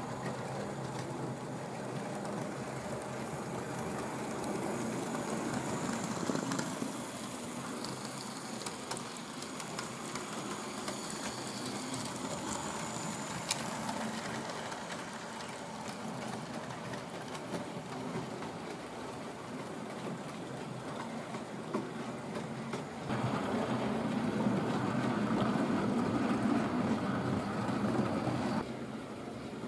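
Hornby OO gauge model train, a GWR Holden 101 class 0-4-0 tank locomotive pulling wagons, running along the track with a steady mechanical running noise. It gets louder for about five seconds near the end, then drops back suddenly.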